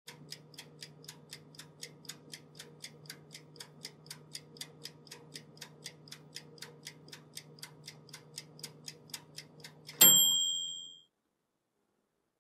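Clock ticking fast and evenly, about four ticks a second, over a low steady hum. About ten seconds in, a single loud bell ding rings for about a second and dies away.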